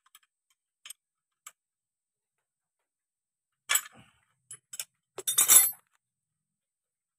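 Steel open-end spanners clinking against the tractor's clutch pressure-plate assembly while the clutch release fingers are adjusted: a few light ticks, a sharp clink about three and a half seconds in, then a louder clatter of metal clinks about five seconds in.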